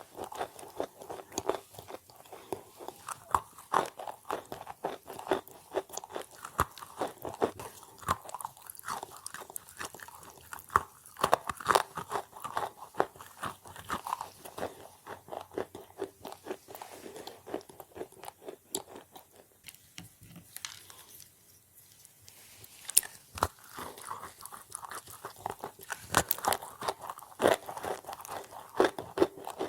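Close-miked chewing of crunchy edible chalk: dense, rapid crunches and crackles that die down briefly about twenty seconds in, then pick up again.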